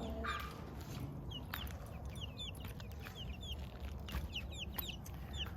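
Chickens peeping and chirping: many short, high, falling chirps, several a second, with a few light knocks among them.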